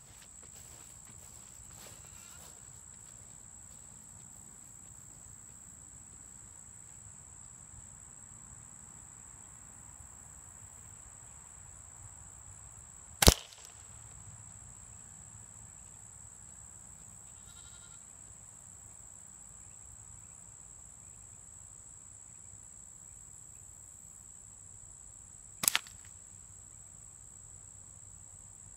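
Two sharp, loud impacts about twelve seconds apart: slingshot ammo striking a hanging target. Behind them, insects keep up a steady high drone.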